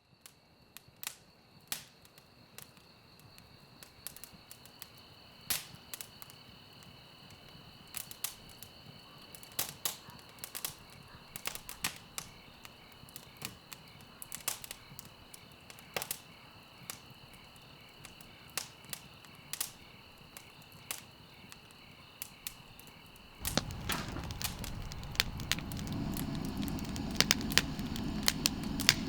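Wood campfire crackling, with sharp irregular pops. Near the end a steady rushing burn comes in and the pops grow louder and more frequent.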